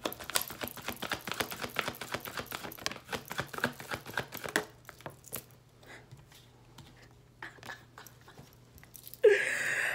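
A deck of oracle cards being shuffled overhand by hand: a rapid run of soft card flicks and slaps for about four and a half seconds, then a few scattered flicks.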